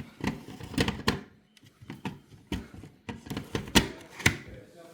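Irregular sharp clicks and light knocks from hands working on fire alarm equipment, about a dozen of them spaced unevenly.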